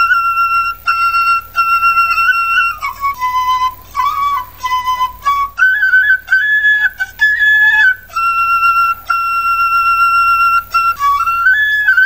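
Solo flute music: one melody line of held notes and short stepping runs, played in phrases with brief breaks between them.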